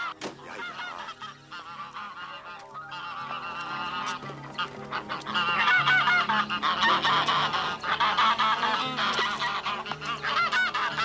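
A flock of geese honking and cackling in alarm, many voices overlapping, growing louder about five seconds in: cartoon geese panicking as the gander is carried off to slaughter.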